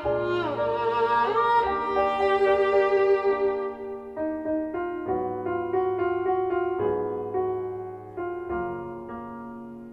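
Violin playing a melody over piano accompaniment, with a slide down in pitch and back up within the first two seconds. After that, piano chords are struck every second or two under held violin notes, and the music grows steadily quieter.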